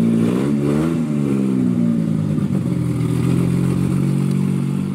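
Car engine revved once, its pitch rising and falling back within about a second, then running steadily.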